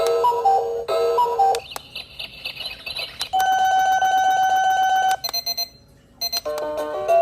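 Built-in electronic alarm ringtones of an LED night-light alarm clock, played one after another: a short beeping melody, then a warbling trill, then a long rapid beeping on one pitch, a brief high beeping, and a new melody near the end.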